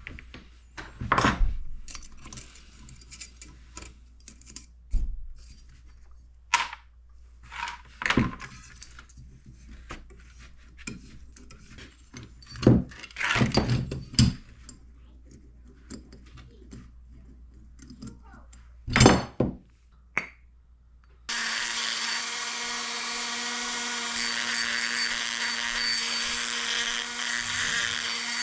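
Scattered knocks and clicks of tools and parts being handled on a workbench. About twenty seconds in, a small high-speed power tool starts abruptly and runs with a steady whine.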